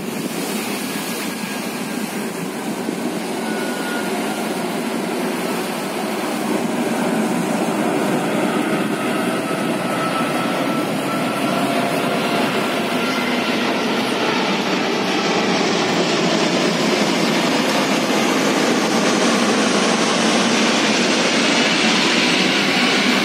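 Airbus A380's four turbofan engines on final approach, a steady jet rumble with a faint falling whine, growing louder as the airliner comes in low and passes overhead.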